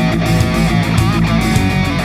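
Heavy rock music with distorted electric guitar, a wavering lead guitar line over a steady beat.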